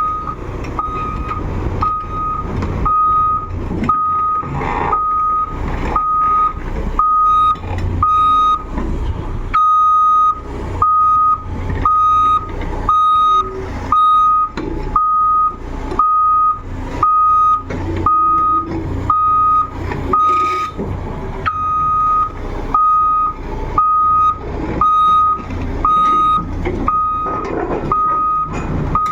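Reversing alarm on heavy equipment beeping steadily about once a second, over a diesel engine running, as the machine backs up.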